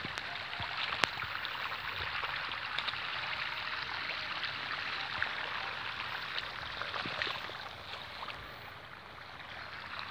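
Irrigation water running in a flooded rice paddy: a steady, even rush of flowing water, with a sharp click about a second in and a few fainter ones later.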